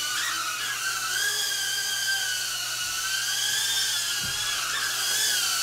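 Blade Inductrix FPV Plus tiny whoop flying, its brushed micro motors and small propellers giving a high-pitched whine whose pitch wavers up and down as the throttle changes.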